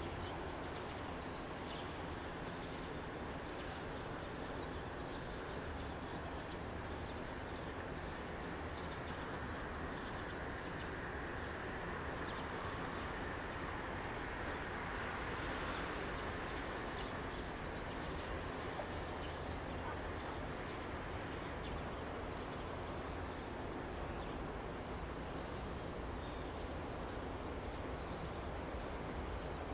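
A bird calling over and over in short high notes, each a quick up-and-down slur, every second or two, over a steady outdoor background hiss.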